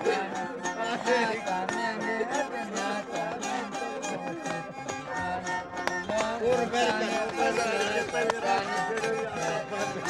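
Traditional folk music on string instruments: a melody that bends in pitch, like a fiddle, over strummed strings keeping a steady quick beat.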